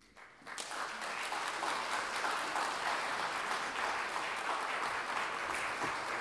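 Audience applauding: the clapping breaks out suddenly, swells within the first second, then goes on steadily.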